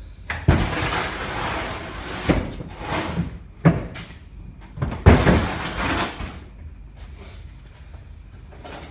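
Rummaging through a bunch of hand tools: metal tools clattering and knocking together in several bursts, with a few sharp knocks, for about six seconds before it quiets down.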